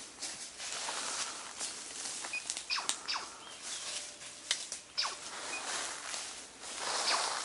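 Footsteps crunching through dry leaf litter and brushing through undergrowth, with several sharp twig cracks in the middle.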